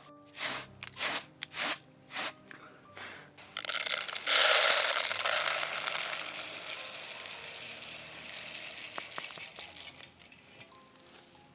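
A few sharp metallic clinks and knocks, then a sudden loud sizzle about four seconds in that slowly dies away: food or liquid going into a hot pan.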